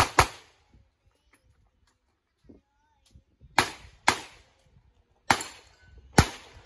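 Revolver shots fired on a practical-shooting stage: two quick shots at the start, a gap of about three seconds, then four more shots half a second to a second apart and another at the very end, each with a short echo.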